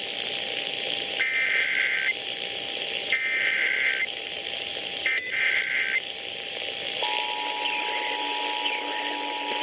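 Emergency Alert System activation heard over a radio: three one-second bursts of the SAME data header, each a harsh warbling buzz, then the steady two-tone EAS attention signal starting about seven seconds in. Background hiss runs under it all.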